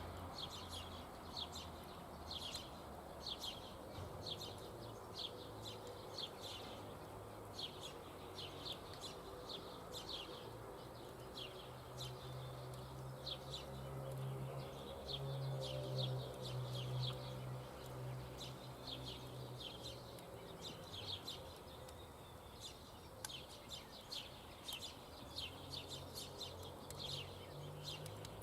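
Small birds chirping over and over in short high notes, with a low steady hum underneath that grows louder in the middle.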